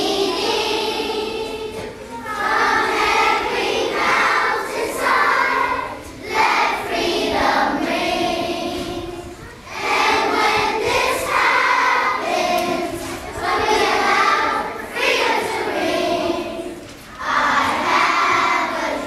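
A large group of children singing together as a choir, in sung phrases of a few seconds each with short breaks between them.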